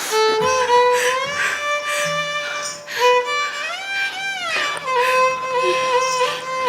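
Violin playing a slow melodic line of long held notes with smooth sliding pitch bends, as accompaniment to a Bharatanatyam dance drama.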